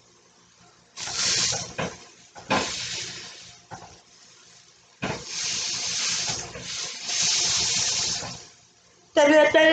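Water running from a tap in several bursts, turned on and off, the longest lasting about three and a half seconds.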